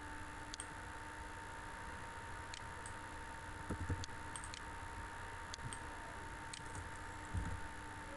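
Faint computer mouse clicks, scattered about one every second or so, over a steady background hum with a thin steady whine. A couple of soft low thumps come in the middle and near the end.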